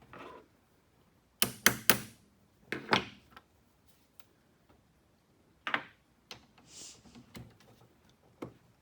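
Hand tools and metal parts of a tractor starter motor clinking and knocking during disassembly: a quick run of three sharp clanks about a second and a half in, two more a second later, then single knocks near six and eight and a half seconds, with a short hiss in between.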